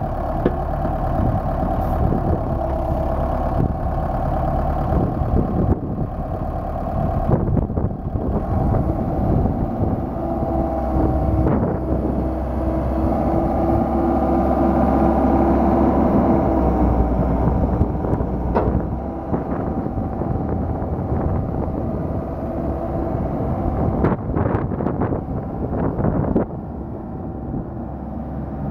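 Komatsu PC78MR-6 compact excavator running, its diesel engine working steadily while the machine swings and raises its boom. A steady higher tone joins for several seconds around the middle, and a few sharp knocks come near the end.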